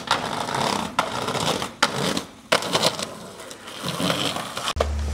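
Skateboard wheels rolling over rough pavement, with several sharp clacks of the board hitting the ground. Music comes in near the end.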